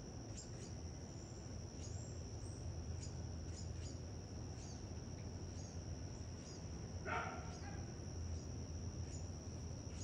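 A steady high-pitched insect trill, typical of crickets, with scattered short high chirps over it and one brief louder call about seven seconds in.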